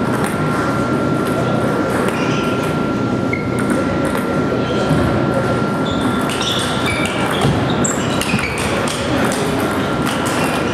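Table tennis balls clicking and pinging off bats and tables, many short overlapping strikes from several tables at once, over a steady din in a large hall with a thin, steady high whine.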